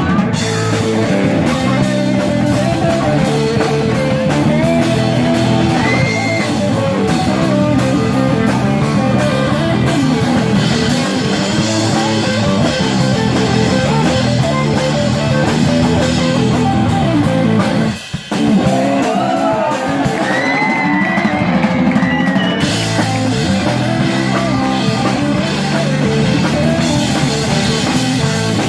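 Live rock band playing: electric guitar lines over a drum kit, with a brief break in the sound about two-thirds of the way through.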